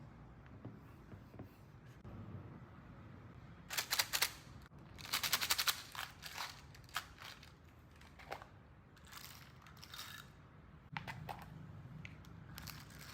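Close handling noise: two short bursts of crackling and clicking about four and five seconds in, then scattered clicks and light knocks.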